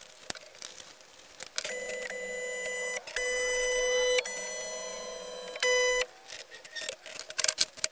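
Shapeoko Pro CNC router's stepper motors whining as the gantry is jogged, in several short moves that start and stop abruptly, with a few rising tones as it speeds up. A few light clicks and taps follow near the end.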